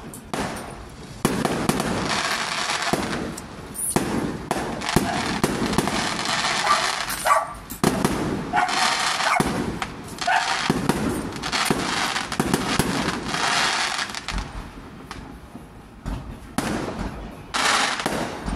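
Fireworks display going off: sharp bangs followed by long stretches of dense crackling, one after another, with a brief quieter lull about three-quarters of the way through.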